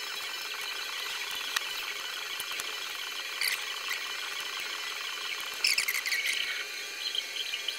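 Faint scraping and clicking of small hand tools working on a MacBook Pro laptop, with two louder scrapes, one about halfway through and one about three quarters through.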